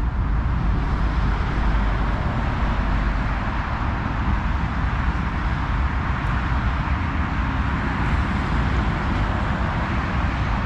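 Steady rush of road traffic from a busy roundabout, a continuous blend of car engines and tyre noise with a deep rumble underneath.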